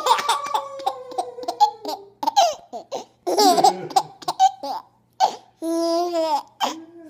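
A six-month-old baby laughing: a long laugh falling in pitch at the start, then short bursts of laughter, and a longer held laugh about six seconds in.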